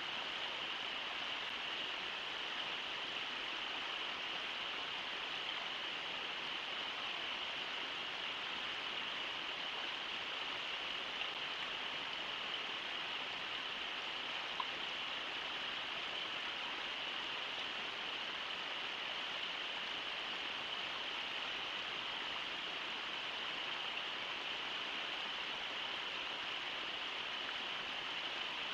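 Brooks River rushing steadily, an even hiss of moving water, with one brief tick about halfway through.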